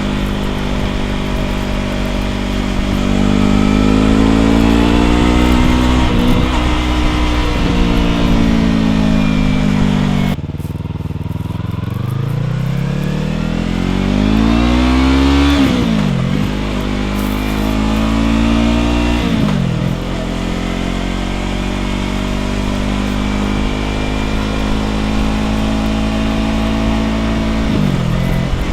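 2015 Yamaha R3's parallel-twin engine through an aftermarket slip-on exhaust, ridden under power: the engine note climbs through the revs and drops sharply on each gear change, several times.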